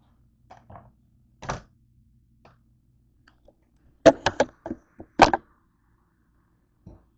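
Handling knocks as a camera is moved and set down on a kitchen countertop: a few light clicks and a knock, then a quick run of about six sharp knocks about four to five seconds in.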